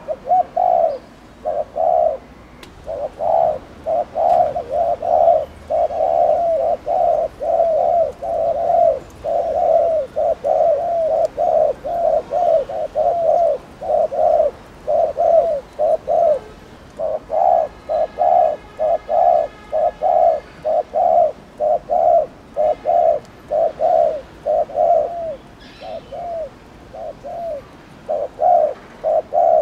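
Spotted dove (cu gáy) giving its excited 'gù' cooing: low, throaty coos repeated about twice a second in long runs with short breaks.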